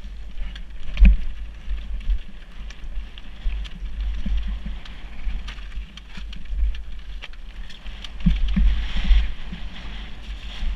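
Mountain bike riding downhill over a rocky, loose-stone trail: tyres rumbling and crunching over the stones and the bike rattling with sharp knocks, the hardest about a second in, while wind buffets the microphone.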